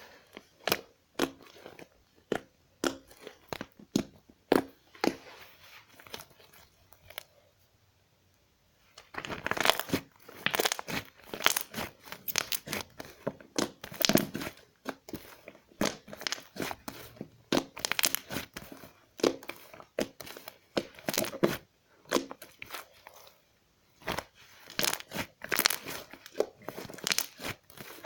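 Slime being squeezed and worked by hand, giving quick irregular crackling pops and clicks as air pockets burst. The crackling stops for about a second and a half a third of the way in, then comes back denser.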